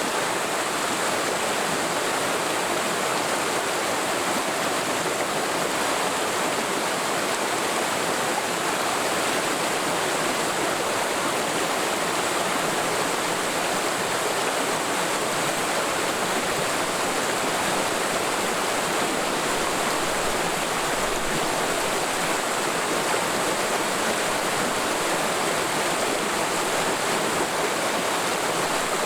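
Forest mountain stream flowing steadily over rocks: an even, unbroken rush of water.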